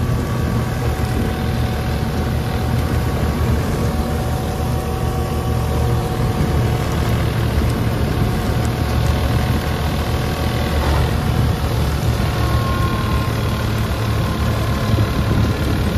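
New Holland 3630 tractor's diesel engine running steadily under load, driving a Jagatjit straw reaper through wheat stubble; the reaper itself runs quietly under the engine sound.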